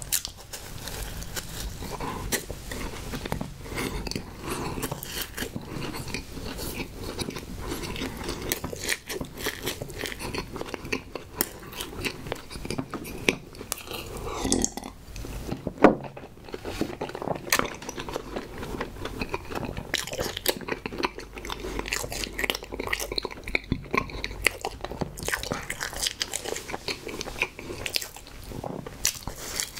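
Close-miked eating of coconut-coated marshmallow Sno Ball snack cakes: bites and steady soft, sticky chewing with wet mouth clicks. About halfway through come swallows of strawberry milk from a glass, and a single sharp knock.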